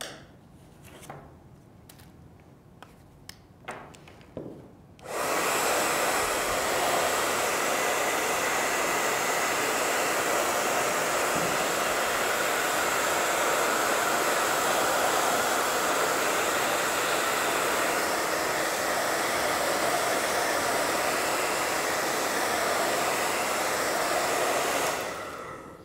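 Handheld hair dryer switched on about five seconds in and blowing steadily, used to dry craft sealer, then switched off near the end. A few faint handling knocks come before it starts.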